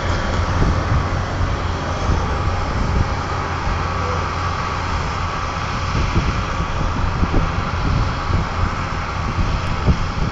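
Steady drone of large John Deere tractors' diesel engines working under load as they pull earth scrapers, with wind rumble on the microphone.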